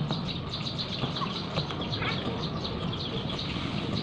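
Small birds chirping repeatedly over a steady low background hum, with a kitchen knife slicing shallots on a plastic cutting board.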